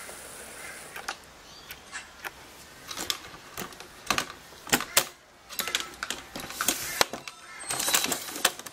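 Irregular clicks and knocks of a camera tripod being gripped and shifted, handled close to the camera. They come thicker and louder from about halfway through, with a dense rattle near the end.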